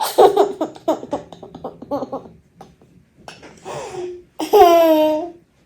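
A young child laughing loudly in a quick run of bursts, then after a short pause a loud, high drawn-out vocal squeal with falling pitch near the end.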